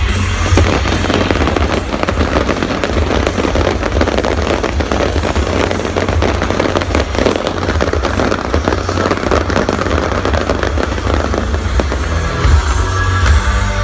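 A fireworks display with dense crackling and popping bursts, over a loud music soundtrack with a heavy bass. Near the end the crackling thins and the music comes through more clearly.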